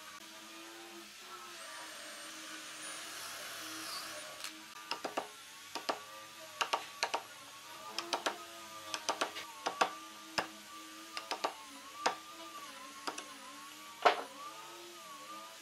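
Background music over a run of irregular sharp clicks and knocks as a steel bar clamp is slid into place and its screw handle turned to press a wooden block into its joint. The loudest knock comes near the end.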